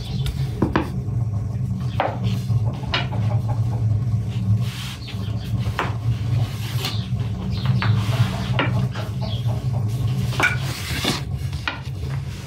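A long wooden rolling pin rolling dough out on a large wooden board: a steady low rumble and rubbing, with irregular light knocks and taps of wood on wood.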